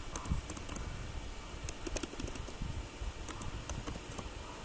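Computer keyboard keystrokes: faint, sparse clicks in small clusters of a few at a time as a word is typed.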